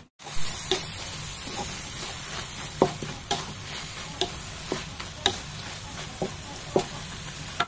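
Shredded chicken sizzling as it is stir-fried in a wok, with a spatula knocking and scraping against the pan in repeated sharp clicks, roughly one or two a second.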